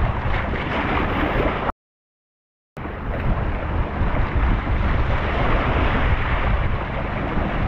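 Sea waves washing and splashing over shore rocks, mixed with wind buffeting the microphone. The sound cuts out completely for about a second a little under two seconds in, then resumes.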